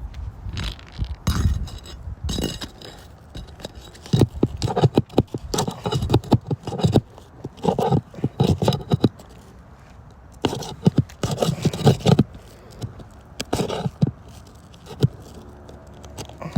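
Repeated scraping and small clinks as a damaged CertainTeed roof shingle is worked loose and slid out from under the course above, in short irregular bouts.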